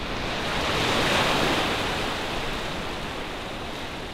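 Sea waves washing onto a rocky shore: a steady rush of surf that swells about a second in and slowly eases off.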